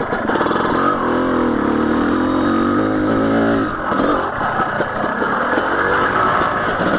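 A 1991 Honda CR500's two-stroke single-cylinder engine running hard on the throttle as the dirt bike is ridden, easing off briefly about four seconds in and then pulling again.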